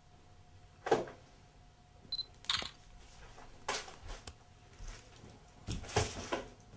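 Irregular knocks and clatters, the loudest about a second in and a cluster near the end, with a brief high beep just after two seconds.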